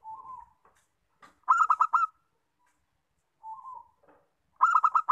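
Zebra dove (perkutut) singing two phrases. Each is a soft opening note followed about a second later by a quick run of four loud coos.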